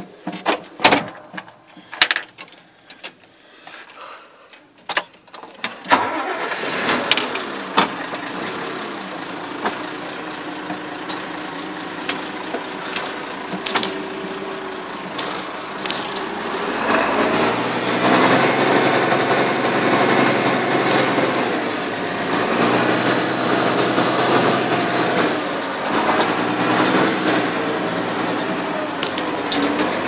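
International Harvester 1255 XL tractor's diesel engine starting about six seconds in, then running steadily, getting louder and fuller from about 17 s. Before the start there are scattered knocks and clicks of handling.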